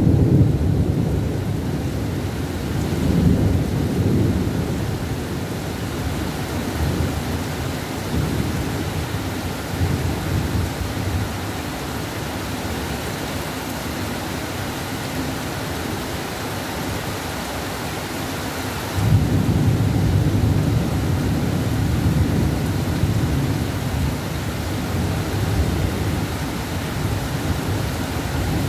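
Heavy rain pouring steadily, with thunder rumbling low several times. A louder rumble starts suddenly about two-thirds of the way through and rolls on to the end.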